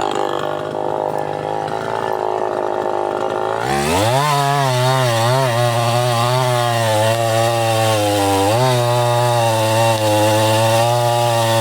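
Two-stroke chainsaw engine running steadily, then about a third of the way in jumping sharply to high revs and staying there with a slightly wavering pitch that sags briefly now and then.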